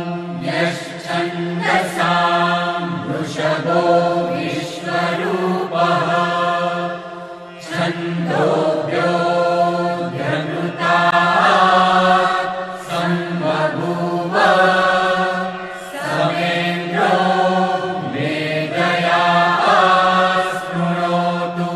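Devotional music: a Sanskrit mantra chanted in sung phrases over a steady low drone.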